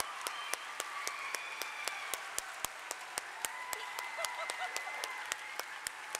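Audience applauding, with one pair of hands close by clapping steadily about four times a second over the general applause.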